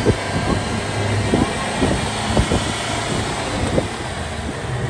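Jeep driving on a rough road, with the engine running under a steady rushing of wind and road noise and occasional short knocks and rattles.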